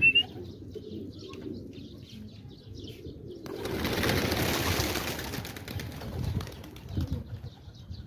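A flock of pigeons taking off together from a release net: a rush of wingbeats swells about three and a half seconds in and fades over the next two seconds. A short rising whistle sounds right at the start.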